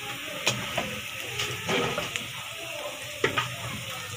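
Sliced onions frying in ghee in a wok: a steady sizzle with a few sharp spattering pops, the loudest about three seconds in.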